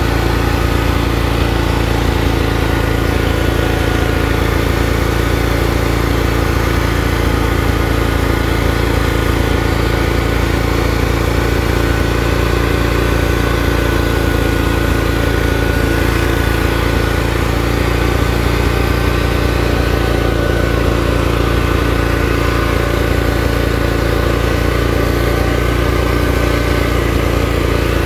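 Lawn tractor engine running steadily at a constant speed while the tractor drives along, recorded from on board.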